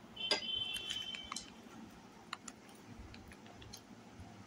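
Light clinks and clicks of a china serving bowl and a plate as shukto is tipped out onto rice, with a high ringing tone for about a second near the start, then scattered soft ticks.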